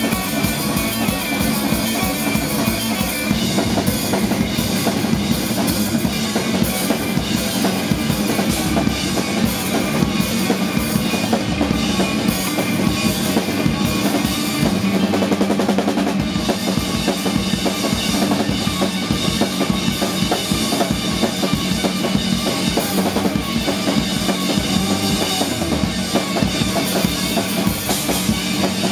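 Live instrumental rock from an electric guitar and a drum kit: busy, dense drumming on kick, snare and cymbals over held guitar chords.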